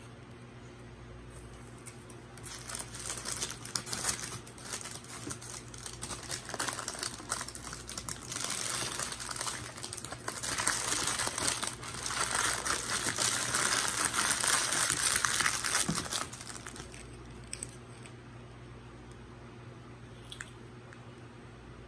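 Food packaging crinkling and rustling as it is handled, for about fourteen seconds and loudest shortly before it stops.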